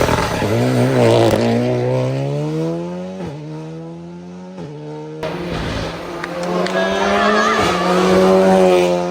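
Rally car engine accelerating hard, its pitch climbing with brief drops at gear changes about three and four and a half seconds in, then fading away. After a sudden break about five seconds in, another rally car engine is heard rising in pitch as it accelerates.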